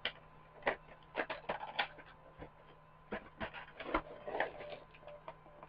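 Irregular light plastic clicks and small rattles from handling a plastic action figure and its parts.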